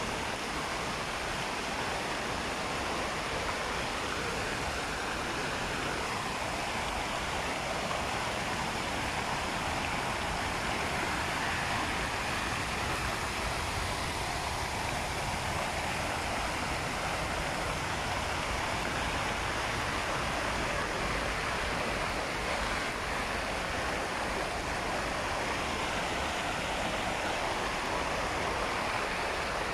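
Fountain jets splashing back into their basin: a steady, even rush of falling water.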